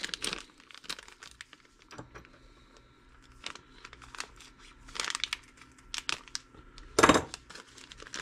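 A small clear plastic parts bag crinkling as it is handled, with scattered light clicks and taps of small parts and tools. The loudest crinkle comes about seven seconds in.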